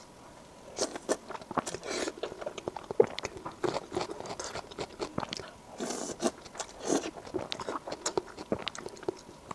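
Close-miked eating sounds: a person chewing soft, saucy spicy pig brain with wet mouth clicks and lip smacks. The sounds start about a second in and come thick and irregular.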